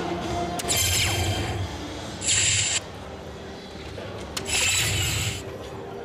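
Soft-tip darts striking a Phoenix electronic dartboard, two sharp clicks, each followed by the machine's electronic hit sound effects. After the first click comes a hissy burst with a falling tone and then a short bright burst about two seconds in. A longer bright burst follows the second click near the five-second mark.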